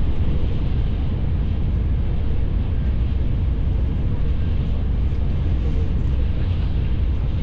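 Steady low rumble and rushing noise of a Tokaido Shinkansen train running, heard from inside the passenger cabin.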